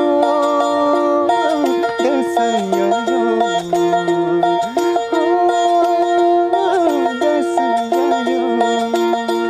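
Nepali sarangi, the bowed folk fiddle of the Gandharva (Gaine) tradition, played with steady drone notes ringing under a gliding melody, while the player sings a folk song with it.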